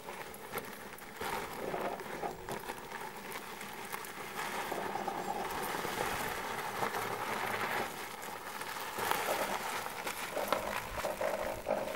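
Small homemade skid-steer loader driving and turning on gravel: a motor whine over the crunch and patter of its knobbly tyres on the stones.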